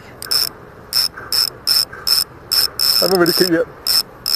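Spinning reel giving short, evenly spaced high buzzing bursts, about two or three a second, while a hooked barramundi is played on the line.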